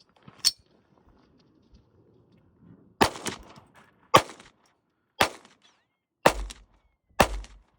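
Browning Buck Mark Camper .22 LR semi-automatic pistol firing: five shots about a second apart, starting about three seconds in, after a single smaller crack half a second in.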